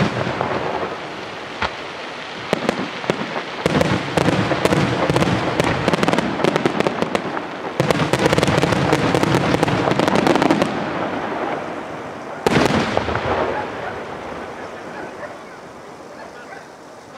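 Fireworks display: rapid volleys of aerial shells bursting with dense crackling reports, a heavy bang about halfway through and another single sharp burst a few seconds later, then the crackle and rumble die away toward the end.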